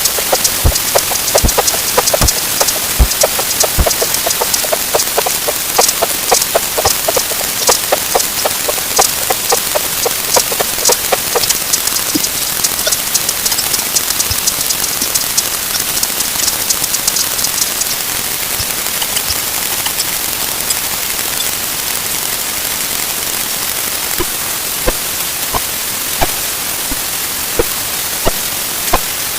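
Timer sound effects sped up many times over, blurring into a steady loud hiss like rain, full of sharp clicks. The clicks are dense for the first twelve seconds or so, then thin out to occasional ones.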